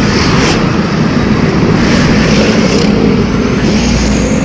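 Motorcycle running along a road at speed, heard from the rider's seat, with wind noise on the microphone.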